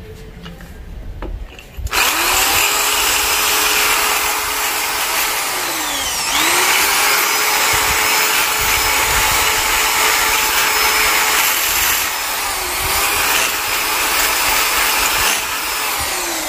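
Corded electric drill in masonry (hammer) mode boring into a masonry wall with a masonry bit. It starts about two seconds in, runs steadily, slows and picks up again twice, then winds down near the end.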